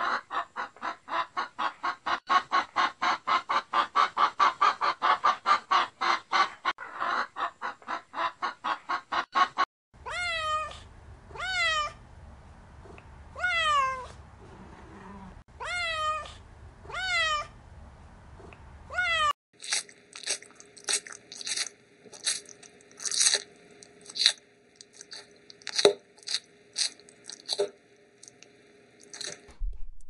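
Hens clucking in a quick, even series, about three or four clucks a second. Then a cat meows again and again, each meow falling in pitch. Then comes a run of short, high-pitched chirps.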